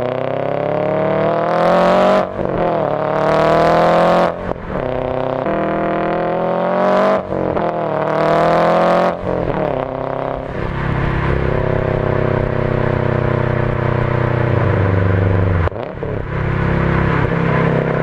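Turbocharged 2004 Subaru Forester XT flat-four engine pulling hard through the gears of its 5-speed manual: the revs climb steeply and drop at each upshift, four times in the first nine seconds, with a hiss near the top of several climbs. It then settles into a steady cruise, with one brief dip near the end.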